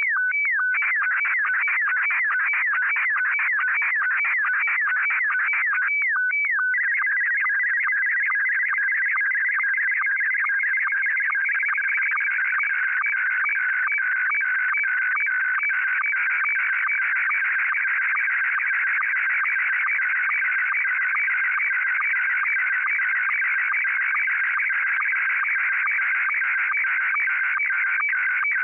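Slow-scan TV (SSTV) picture signal in Scottie 1 mode played back from a compact cassette: a steady, high-pitched warbling stream of rapidly changing tones with fine regular ticks. It carries the image line by line, and the pattern changes briefly about six seconds in as the picture content changes.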